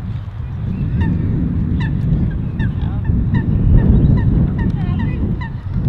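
Waterfowl calling, a string of short pitched calls about two a second, over a loud low rumble.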